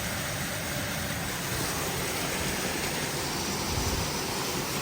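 Waterfall pouring: a steady rush of falling water.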